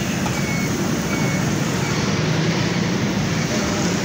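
Steady hiss and rumble of fries deep-frying in a wire basket in hot oil at a gas-fired street fryer, with street traffic around it.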